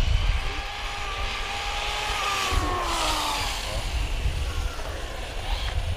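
Brushless electric motors of hobby-grade RC cars whining, the pitch rising and falling as they speed up and slow down, over a rumble of wind on the microphone.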